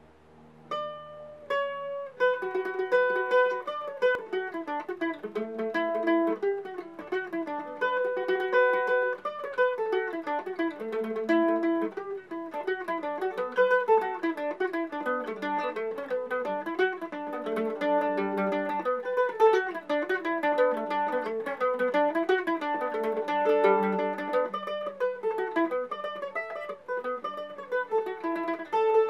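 Solo mandolin: a few single plucked notes, then from about two seconds in a brisk, continuous Irish-style melody of quick notes.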